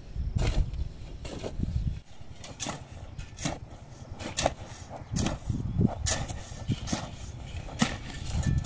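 Irregular knocks and clicks, about a dozen spread unevenly, over a low rumble that stops about two seconds in.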